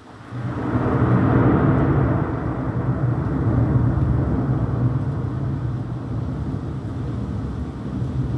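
A clap of thunder that breaks in suddenly under a second in, then rolls on as a long low rumble, slowly fading.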